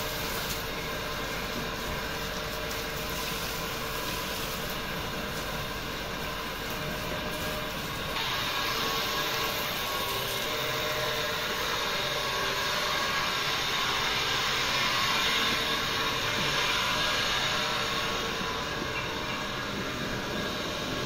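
Water from a garden hose spraying and splashing onto wet concrete: a steady hiss that gets louder about eight seconds in.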